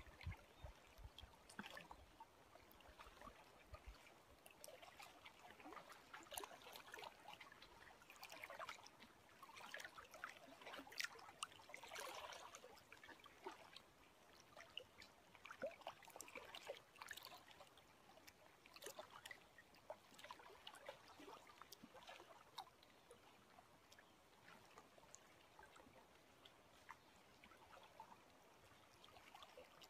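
Faint, irregular lapping and trickling of small lake ripples close to the microphone, many little splashes and drips scattered throughout.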